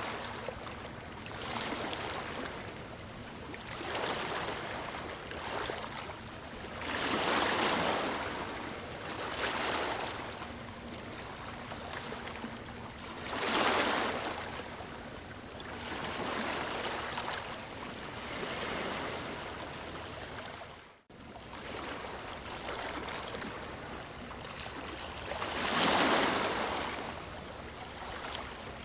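Ocean waves breaking on a beach: surges of surf that swell and wash back every few seconds, the biggest breakers coming about a quarter of the way in, about halfway, and near the end. About three quarters of the way through, the sound cuts out for an instant.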